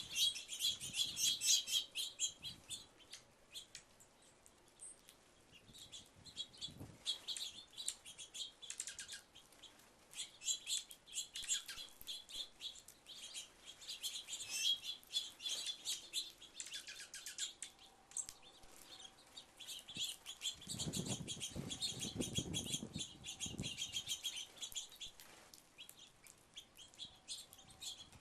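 A flock of small birds chirping rapidly in overlapping clusters at a feeder, with a low rustling burst about twenty-one seconds in.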